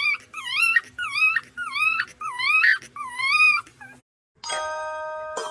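A dog whining in a string of high, pitched cries, each dipping then rising, about every two-thirds of a second. After a brief gap near the end, a chiming jingle of sustained bell-like tones begins.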